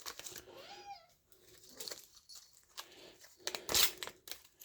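A domestic cat gives one short meow about half a second in. After it come soft rustling and crinkling, with a louder rustle shortly before the end.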